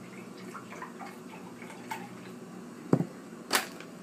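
Milk trickling and dripping into a glass measuring cup as it is filled to the half-cup line, in small scattered drips. About three seconds in there is a thump, followed about half a second later by a short sharp noise.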